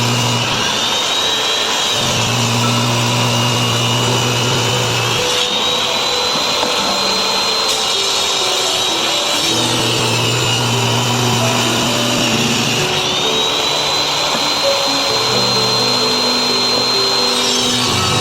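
A power tool's motor whines steadily, its pitch dropping and rising again several times as it cuts into solid wood and runs free, over background music.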